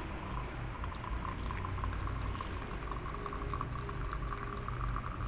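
Water trickling steadily from a small plastic watering can onto a potted plant.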